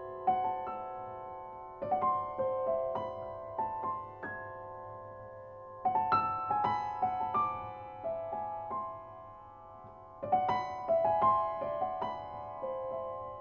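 Background piano music: gentle phrases of single struck notes that ring and fade between them.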